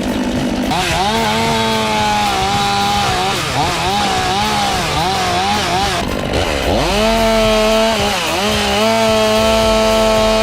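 Two-stroke chainsaw running at high revs in a cut, its pitch sagging and recovering again and again as the chain loads up in the wood. About six seconds in, the engine drops to low revs and then revs back up to a high, steady pitch.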